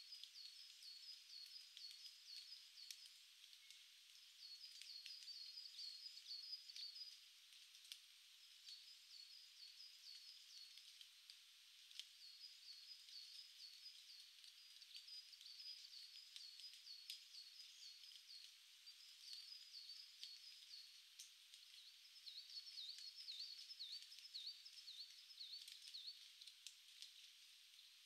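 A small songbird singing faint runs of rapid high notes, each run lasting two to three seconds and repeated after short pauses; the last run, near the end, is a little lower and swooping. A steady faint hiss lies underneath.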